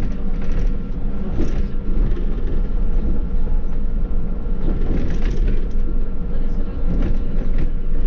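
Running noise inside a Škoda 27Tr trolleybus on the move: a steady low rumble with a constant electric whine held on one pitch.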